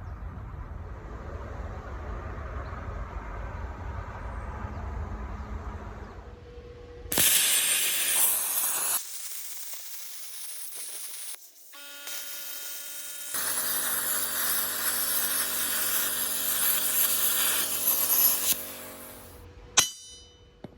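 A power tool cutting the hole for a pressing support, in two loud runs: a short one of about two seconds, then a longer one of about five seconds with a steady motor hum beneath it. Before that a low rumble, and a sharp click near the end.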